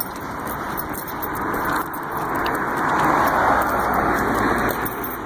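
A car driving past, its tyre and engine noise swelling to loudest about three seconds in and then fading.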